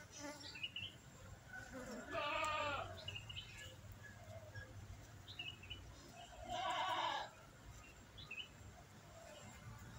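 Two wavering animal calls, each about a second long and about four and a half seconds apart, with faint bird chirps between them.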